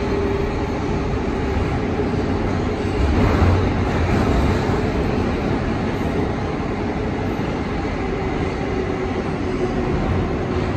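R142A subway car running on the rails, heard from inside: a steady rumble and rail noise with a faint steady hum. The rumble swells louder for a moment about three seconds in.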